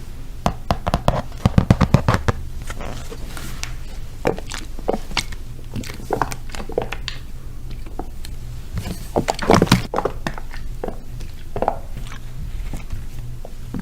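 ASMR tapping and scratching on objects close to the microphone: irregular clicks and taps, coming in a quick flurry about a second in and again around ten seconds in. A steady low hum runs underneath.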